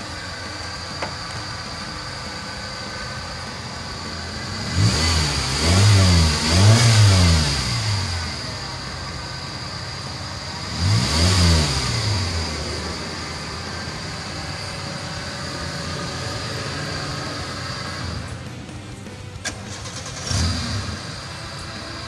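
Suzuki Baleno's four-cylinder engine idling through a freshly welded racing exhaust, revved twice in quick succession about five seconds in, once more near the middle, and blipped briefly near the end, each rev rising and falling in pitch as the throttle is adjusted.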